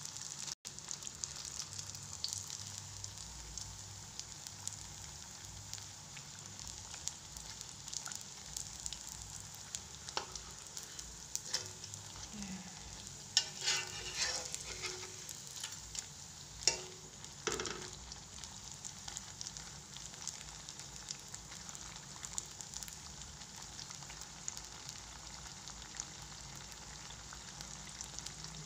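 Batter fritters (peyek) frying in hot oil in a wok, a steady sizzle and crackle. A few sharper clinks and scrapes of a metal slotted spatula against the wok come around the middle.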